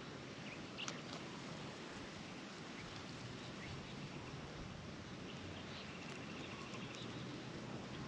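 Quiet outdoor background: a steady hiss with a few light ticks about a second in and a faint, thin high note around six seconds in.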